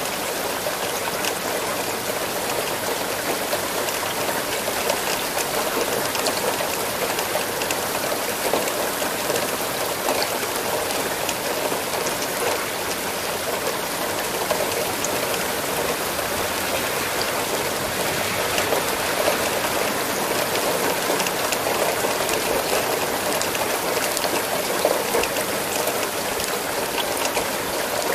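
Steady rain falling, with the patter of individual drops hitting a surface.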